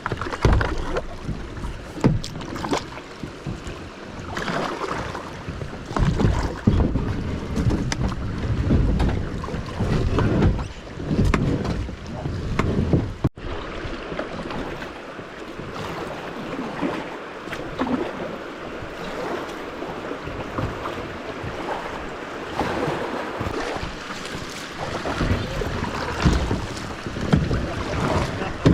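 Kayak on the water: irregular paddle splashes and knocks against the plastic hull, with wind buffeting the action-camera microphone. The sound breaks off abruptly about halfway through and resumes.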